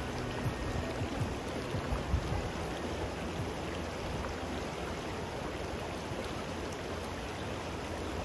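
Shallow river flowing over rocks: a steady, even rush of water.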